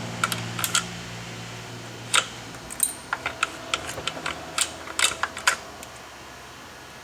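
Irregular small clicks and taps of steel forceps and a throttle cable working against the plastic rear handle of a Husqvarna 372 XPW chainsaw as the cable is pulled out. A low steady hum fades out about three seconds in.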